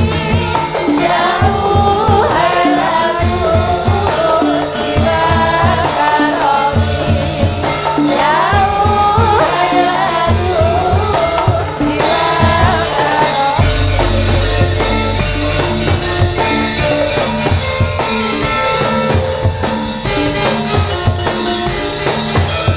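Several female sinden sing a Javanese song together over a Javanese ensemble with drums and jingling percussion. About twelve seconds in the voices stop, and the accompaniment carries on as an instrumental with a heavier drum beat.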